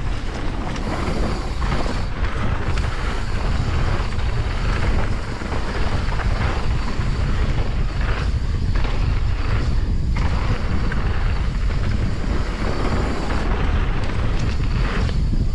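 Wind buffeting the microphone of a chest-mounted action camera while a mountain bike runs down a dirt singletrack, with the tyres rolling over loose dirt. It is a steady, loud, low noise.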